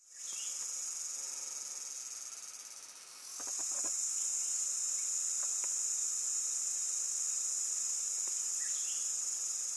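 A forest insect chorus: a steady, high, shrill buzz that dips about three seconds in and swells straight back up.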